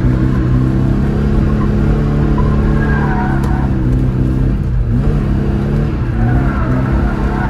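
Tofaş Doğan SLX's engine running loud at high, steady revs while the car is driven hard, dipping briefly in pitch about five seconds in before picking back up. Faint wavering higher tones come and go over the engine.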